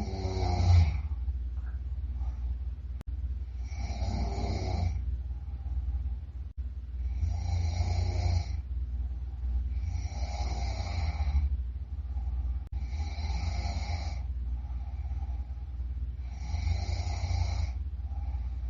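A sleeping person snoring loudly, one rasping snore about every three to three and a half seconds, six in all, over a steady low hum.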